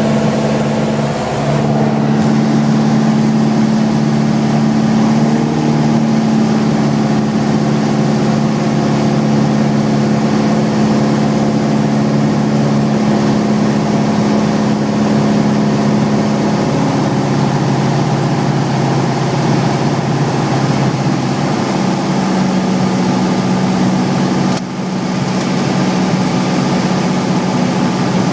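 Light aircraft's piston engine and propeller droning steadily, heard from inside the cockpit; the engine note drops a little about two-thirds of the way through.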